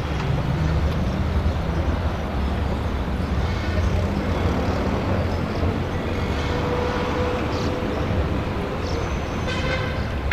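Steady open-air background noise with a low hum, with no speech or music. Near the end a few plucked guitar notes begin.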